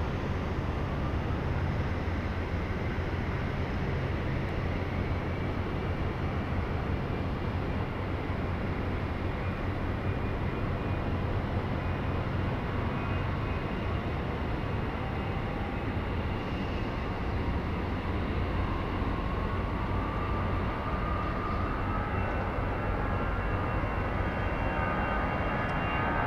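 Airbus A320-family airliner's jet engines running on the runway with a steady rumble; from about two-thirds of the way through, a whine rises in pitch as the engines spool up for takeoff.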